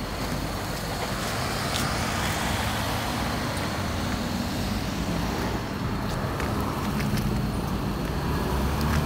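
Road traffic: motor vehicles passing with a steady engine and tyre noise that grows a little louder near the end.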